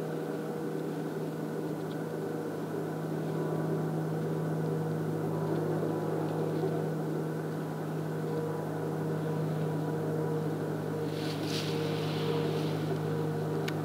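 A steady, low motor drone, like an engine running at a constant speed.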